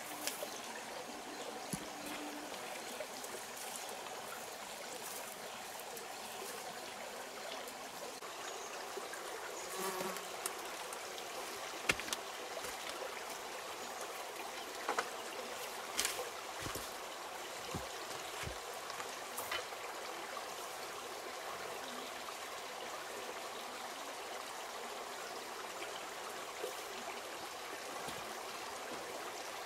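Steady rushing and trickling of a small rocky stream, with occasional light knocks and clicks from bamboo poles being handled and fitted together.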